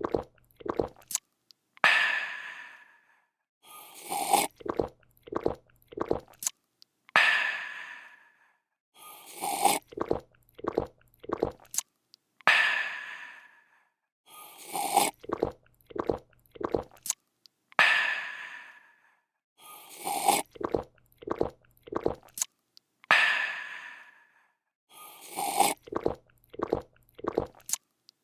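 A person slurping a drink, gulping several times and letting out a refreshed 'aah'. The same loop repeats about every five seconds, five times over.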